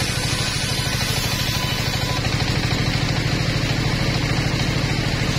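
Engine of a mobile circular-saw bench running steadily with a fast, even throb, while the spinning saw blade rips a wooden plank lengthwise.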